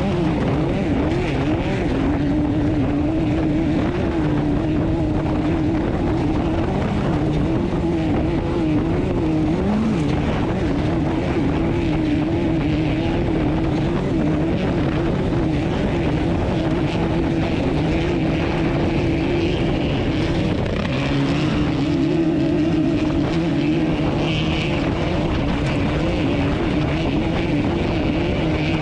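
Off-road race car engine running hard at steady high revs, its note wavering up and down, with brief drops in pitch about ten and twenty-one seconds in.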